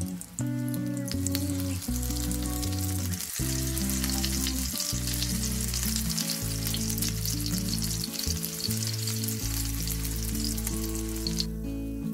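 Zucchini fritters sizzling and crackling in hot oil in a frying pan, cutting off abruptly just before the end, over background music with held low notes.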